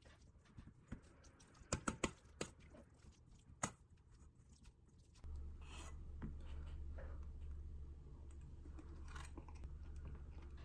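A metal spoon clinking and scraping against a stainless steel bowl while mixing rice and toppings: several sharp clinks in the first few seconds, then softer scraping. A low steady hum comes in about halfway.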